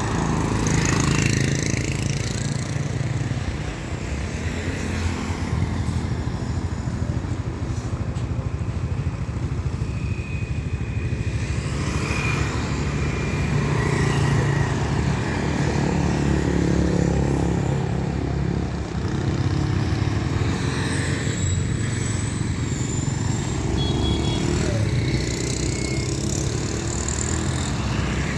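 Steady engine hum and road noise from riding along a town street, with cars and motorbikes passing close by.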